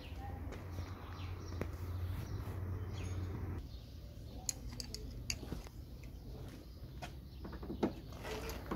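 Faint scattered clicks and light knocks of hand tools and plastic as the Mercedes W210 headlight's bolts are worked loose, over a low steady hum that stops about a third of the way in.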